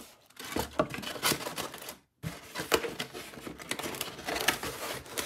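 Rustling and small clicks and knocks as the parts and packaging of a knife-sharpening kit are handled and fitted back into their box. About two seconds in, the sound drops out suddenly for a moment.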